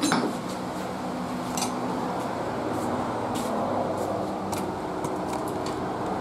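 A sharp metal knock at the start, then light metal clinks as a Ford F-150 4x4 front brake rotor and hub is handled and set on a steel work table, over a steady mechanical hum.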